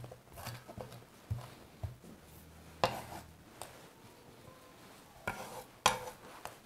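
Kitchen knife knocking and scraping on a wooden cutting board as freshly chopped parsley and mint are finished and swept off into a glass bowl: a few scattered, irregular knocks, with two heavier ones near the end.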